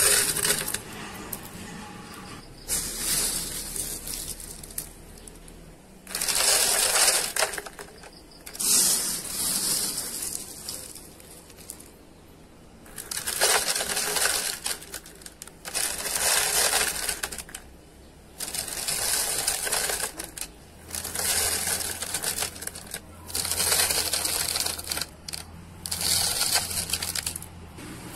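Handfuls of uncooked rice poured into a clear plastic container, the grains rattling and pattering against the plastic in about nine separate pours of a second or two each.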